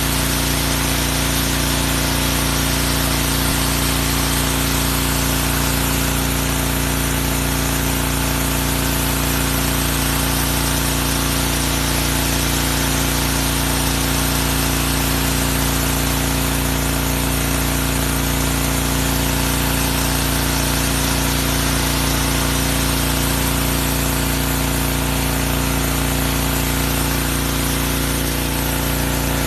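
Pressure washer running steadily: the motor hums under the hiss of the high-pressure water jet, with no change throughout.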